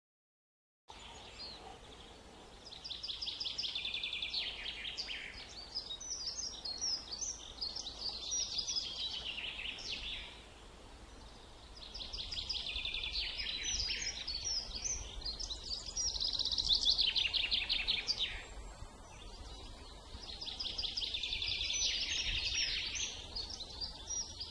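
Small songbird singing three long bouts of rapid high trills and twittering, each several seconds long, over a faint low background rumble.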